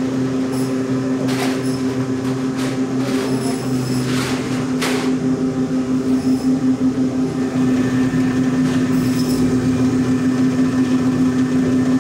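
Steady hum of processing-plant machinery at one fixed pitch, with several hard knocks and clanks in the first half as frozen whole salmon are pulled off stainless-steel rack trays and loaded into a plastic crate.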